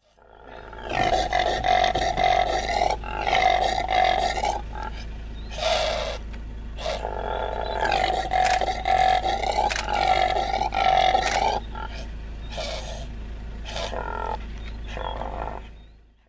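Impala (Aepyceros melampus) calling: a series of loud, rough calls in several bouts separated by short pauses, over a steady low hum.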